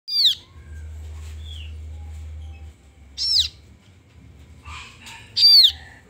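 Kaso-kaso nestlings calling: three loud, short chirps that each fall in pitch, one at the start, one about three seconds in and one near the end.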